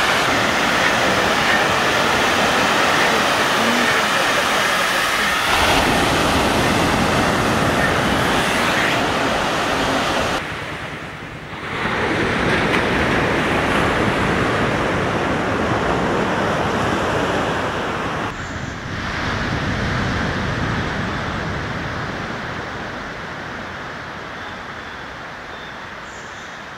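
Surf breaking and washing onto a sandy beach, a steady rushing noise that dips briefly twice.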